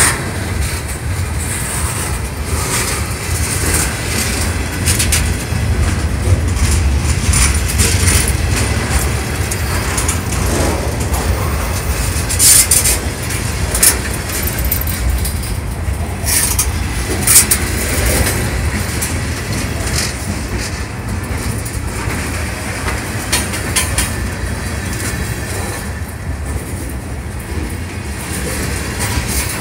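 Freight cars of a passing train, tank cars and coil cars, rolling by at close range: a steady low rumble with wheels clicking over rail joints, and sharp clanks now and then, the loudest about twelve and seventeen seconds in.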